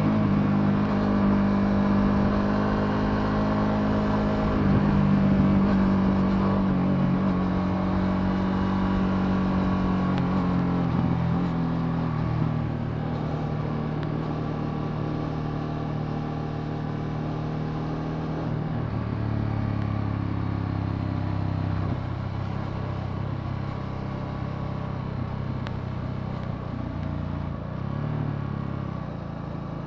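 Ducati Multistrada V2S's 937 cc Testastretta V-twin running under way. The engine note steps down in pitch a couple of times and gets a little quieter toward the end.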